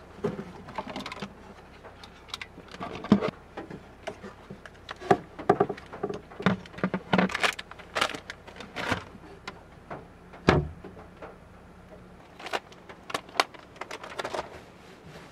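Irregular handling noises: the rustle of white wrapping being pulled off items, with clicks and knocks as things are handled on and in a wooden crate, and one heavier dull thump on the wood about ten and a half seconds in.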